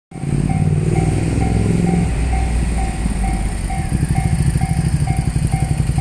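Japanese railway level-crossing alarm ringing its electronic bell tone about twice a second while the barrier is down, over a loud low rumble that turns into rapid pulsing about four seconds in.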